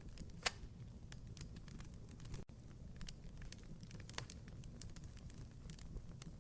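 Wood fire crackling: irregular sharp pops and snaps over a low steady rumble of burning, the loudest pop about half a second in. The sound cuts out for an instant midway.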